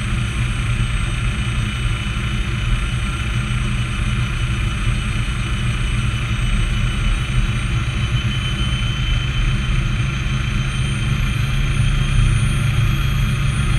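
Bell 206A helicopter's Allison 250 turboshaft engine running steadily, heard from inside the cabin: a continuous low drone under a high turbine whine, the whine edging slightly higher in the second half.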